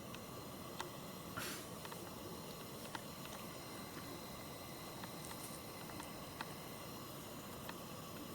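Quiet handling sounds from a small pocket knife in use: a few light clicks and one short scrape about a second and a half in, over steady background hiss.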